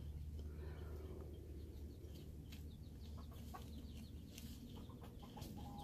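Hens giving short, quiet clucks now and then while dust bathing, with scattered soft scratchy clicks over a low steady rumble.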